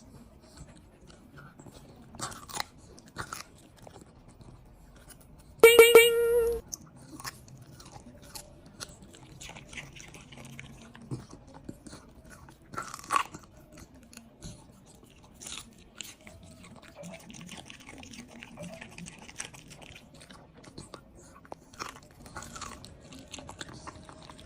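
Dog crunching and chewing broccoli, with irregular crunches throughout. A loud pitched tone lasting about a second sounds around six seconds in.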